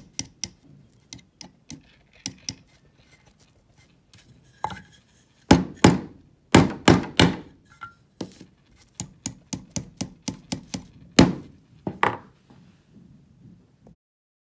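Hammer tapping steel nails into a wooden board: a quick run of light taps, about four or five a second, then scattered taps and a few much heavier strikes past the middle and again near the end. The sound stops just before the end.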